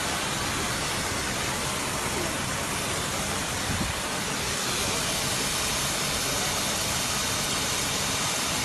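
Steady rushing hiss of a motorised disinfectant sprayer running without a break, its spray and pump noise unchanging throughout.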